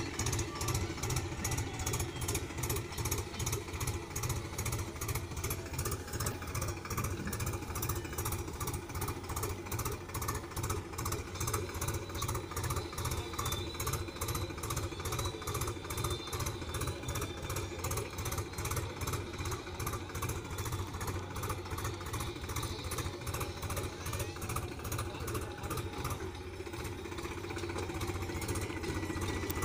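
Powertrac 439 Plus tractor's diesel engine running steadily under load in first gear, high range, pulling a two-row potato planter, with a regular pulsing beat.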